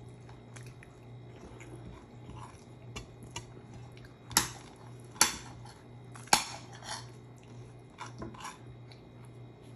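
Table eating noises: chewing and small clicks, with three sharp clinks of a utensil on ceramic dishware a little past the middle. A steady low hum runs underneath.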